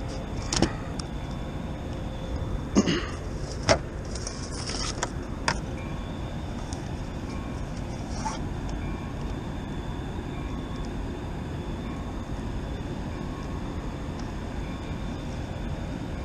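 A few sharp knocks and clatters, mostly in the first six seconds, from a speckled trout, landing net and measuring board being handled on a plastic kayak. A steady low rumble of wind on the microphone runs underneath.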